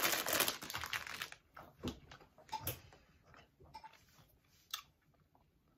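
A person chewing a sour gummy candy: dense, busy chewing noise for about the first second and a half, then a few faint separate mouth clicks.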